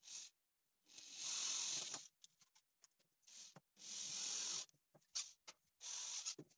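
Screws being driven into the corners of a wooden hive frame with a cordless drill-driver: three short rasping bursts, about a second each, near the start, the middle and the end, with a few small clicks between them.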